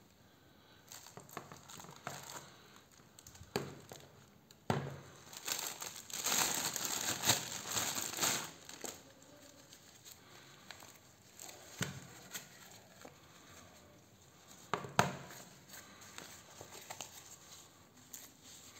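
Plastic packaging crinkling and rustling as it is handled, loudest for about three seconds near the middle, with scattered clicks and knocks from a wrist blood pressure monitor and its plastic case being handled.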